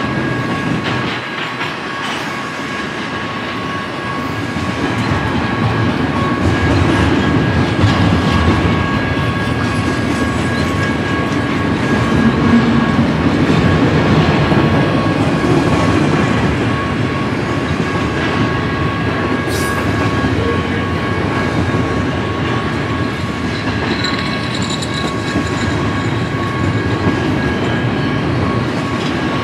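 Double-stack intermodal freight train's well cars rolling past at trackside: a continuous rumble of steel wheels on rail, growing a little louder a few seconds in, with a thin steady high tone running over it.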